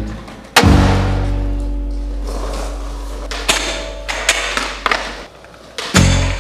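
Music soundtrack: a long deep bass note with sharp drum-like hits.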